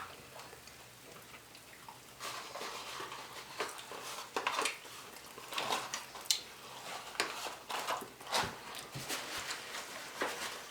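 Close-miked eating sounds: chewing and mouth noises, with scattered short clicks, crackles and rustles of food being handled.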